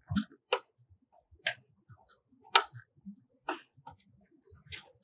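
Sharp clicks about once a second from a DTF printer's film take-up roller as its cardboard core is handled and turned by hand to wind on the film.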